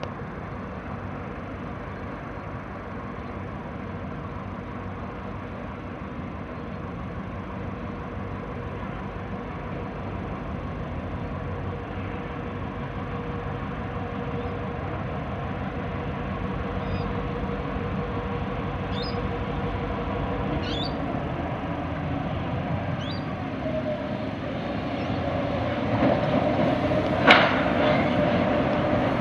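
Narrow-gauge diesel freight locomotive approaching slowly, its engine and running noise growing steadily louder as it draws near, with a single sharp clank near the end.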